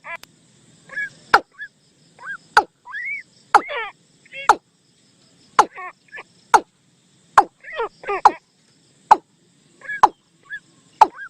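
A bird-call decoy recording of the bird known in Thai as nok toom, played for bird trapping: short calls repeat about once a second, some arching up and down in pitch, with a sharp click at many of them.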